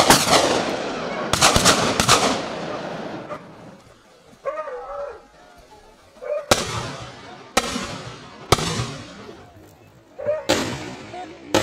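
A string of gunshots, about eight: several close together in the first two seconds, then single shots roughly a second or two apart after a pause. Each shot rings on in a long echoing decay. Short calls are heard in the pause between the volleys.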